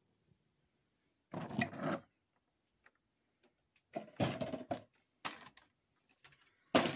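Packaging being handled: a clear plastic blister tray clatters and rustles as it is moved aside, in two short bursts about one and a half and four seconds in, then a brief click a little after five seconds.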